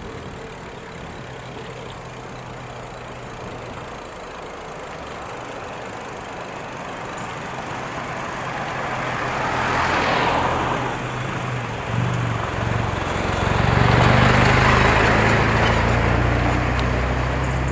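Motor vehicle engines passing on the road. The sound swells about ten seconds in, then an engine hum builds from about twelve seconds and a second, longer swell follows.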